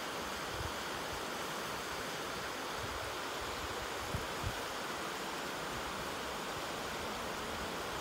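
Steady rushing of a small waterfall on a stream, with a couple of soft low thumps about four seconds in.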